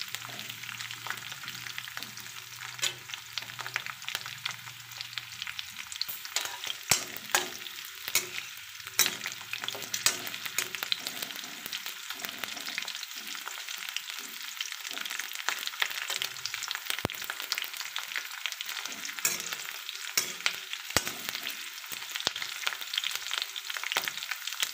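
Chopped green capsicum sizzling and crackling in hot oil in a metal kadai, being lightly roasted, with a slotted spatula stirring the pieces now and then.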